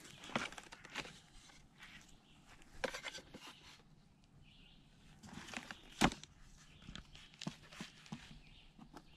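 Faint rustling and scattered clicks of handling and movement over leaf litter, with one sharper click about six seconds in.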